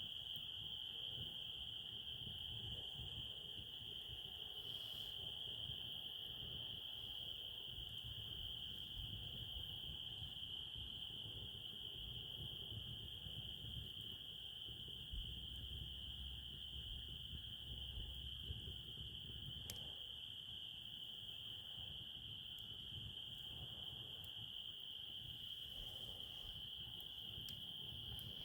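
A steady chorus of night insects, most likely crickets, holding one unbroken high-pitched note, over a faint low rumble with an occasional soft click.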